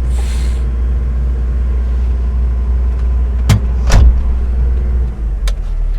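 CAT 312 excavator's diesel engine running steadily while grading gravel, with two sharp knocks about half a second apart midway through and a lighter click near the end.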